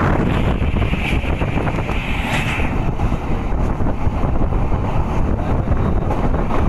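Wind buffeting the microphone over the steady running noise of a passenger train, heard from an open door or window as it moves along the track. A higher hiss comes in for the first two or three seconds.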